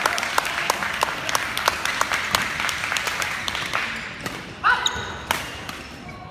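Badminton rackets striking shuttlecocks, sharp ticks at irregular intervals from the rally and neighbouring courts, over a steady hum of crowd chatter in the hall. A short squeal comes about three quarters of the way through.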